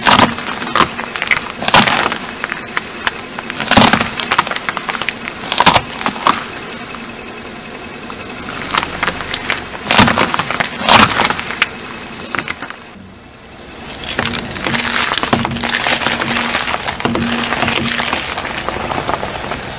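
Green apple cracking and crunching under a slowly rolling car tyre, a series of sharp cracks a couple of seconds apart. After a brief lull, a tyre crushes a carton of raw eggs with a dense, steady crackle of breaking eggshell.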